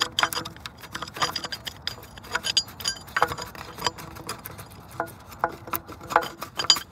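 Irregular clicks and light metallic clinks of an OEM Jeep Grand Cherokee roof-rack crossbar's metal clamp and plastic end piece being worked loose and pulled off by hand.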